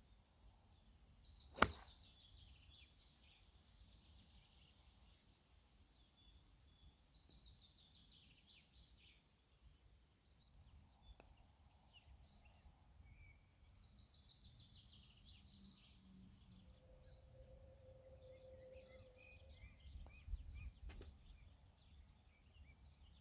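A golf club striking a ball off the tee: one sharp click about two seconds in. Faint bird calls follow, with a few soft knocks near the end.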